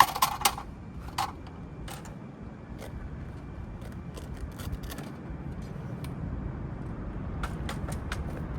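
Camping gear being handled: scattered sharp clicks and light clinks over a steady low noise, with a cluster of clicks at the start and more near the end.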